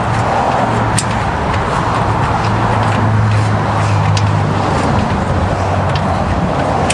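Steady motor-vehicle noise with a low hum that swells through the middle, and a few light scattered clicks from a ratchet wrench working a nut on a go-kart frame.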